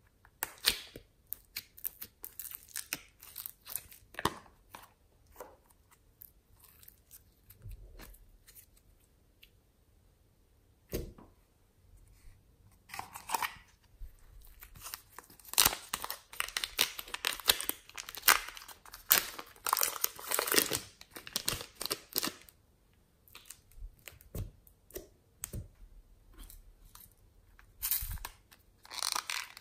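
Plastic slime and clay packaging being handled and opened by hand: scattered clicks and crackles of plastic jars and lids, then a long stretch of dense crinkling and tearing in the middle as a plastic pouch of clay is torn open, with another short burst near the end.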